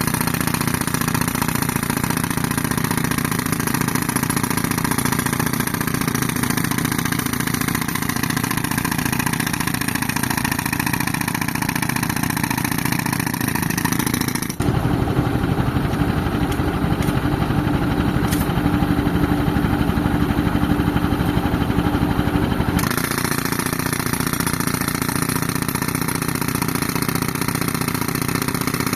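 Tractor engine running steadily while driving an air compressor. The sound changes abruptly about 15 s in and changes back about 23 s in.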